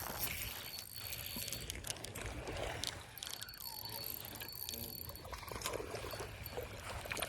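Water splashing and trickling close by, with scattered clicks and handling noise.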